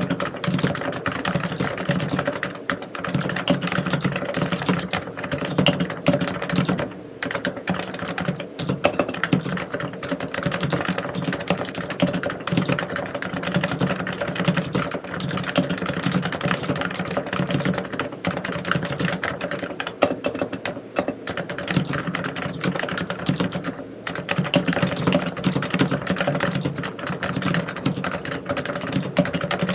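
Continuous typing on a Realforce R3 tenkeyless keyboard with silenced 45 g Topre electrostatic capacitive switches: a dense stream of key strokes that dips briefly twice.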